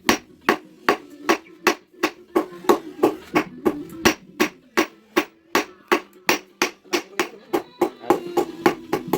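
Hammer blows on steel being forged on an anvil, a shock absorber rod worked into a blade, struck in a steady rhythm of a little under three blows a second with a ringing tone under the strikes.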